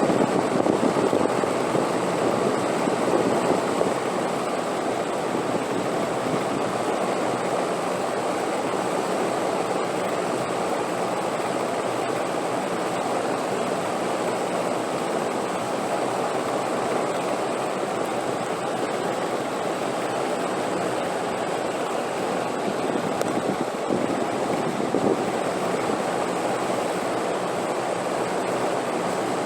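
Steady wind noise: a continuous rushing hiss with no gusts or breaks, a little louder in the first few seconds.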